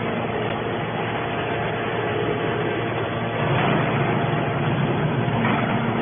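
Hydraulic scrap metal baler running: a steady machine hum from its power pack, with a fuller low rumble from about three and a half seconds in.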